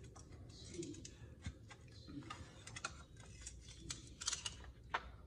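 Stainless steel tongs and a knife clicking and tapping against a stainless steel tray while cooked ribs are pulled apart: faint, irregular small metal clicks, a few sharper taps near the end.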